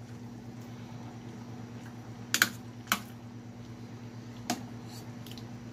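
Metal ladle clinking against a stainless steel soup pot while stirring: a quick double clink about two seconds in, another a moment later and a fainter one near the end, over a steady low hum.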